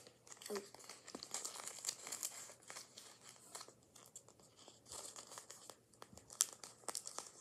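Tape-covered paper crinkling and crackling in the hands as a homemade paper pop-it toy is handled, a run of small irregular crackles.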